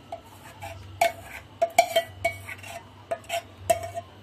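Metal spoon clinking and scraping against a steel plate while working the white jelly mixture: about a dozen irregular, ringing clinks that start about a second in.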